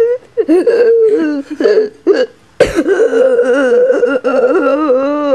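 A child's high voice play-acting an asthma attack: short coughs and broken vocal noises, then, after a sharp knock about halfway through, one long wailing sound with a wavering pitch.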